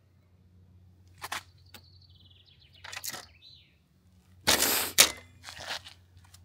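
Bicycle chain jammed by a twig being worked free by hand: a few sharp metallic clicks, then a loud rattling clank about halfway through and a couple of smaller rattles.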